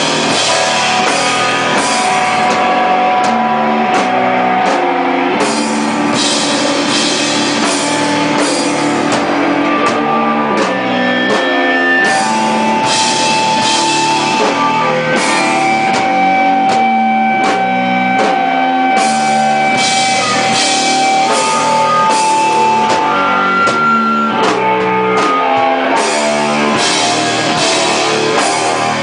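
Hardcore rock band playing live at full volume: electric guitar with long held notes over a drum kit with steady cymbal hits.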